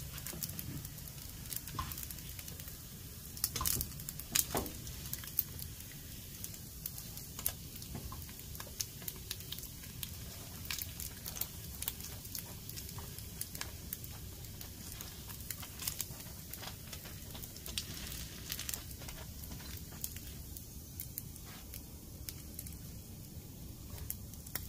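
Food frying on a camp griddle: a steady sizzle with scattered crackles and pops of hot fat.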